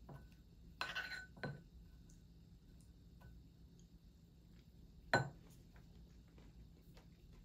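A metal spoon scraping and clinking against a bowl about a second in, then dropped into the bowl with a sharp clink a little after five seconds. Faint clicks of typing on a laptop keyboard follow.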